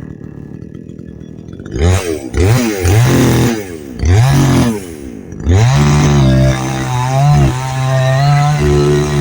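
Radley 52cc two-stroke chainsaw idling, then revved in several quick blips that rise and fall. About halfway in it is held at high revs, with a few brief dips in pitch.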